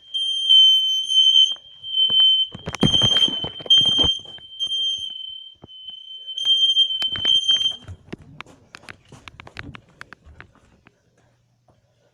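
Smoke alarm sounding on test: a shrill, steady high tone with short breaks, which cuts off about eight seconds in. Knocks and clatter come under it a few seconds in, and scattered clicks follow after it stops.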